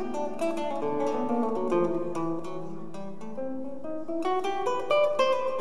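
Live trio music: guitar picking quick runs of plucked notes over long, low held notes, likely from the bass clarinet.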